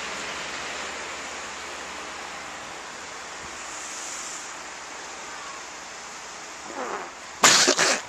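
Steady hiss of wind and falling snow, then near the end a man's short strained groan followed by loud spluttering coughs through a mouthful of snow.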